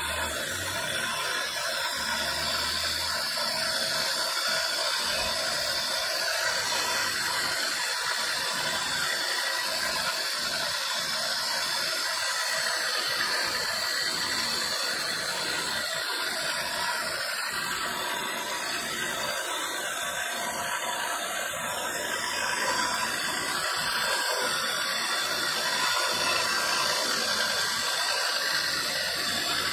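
Rotary carving tool with a small burr bit running steadily as it grinds onyx marble: a continuous whine over a grinding hiss.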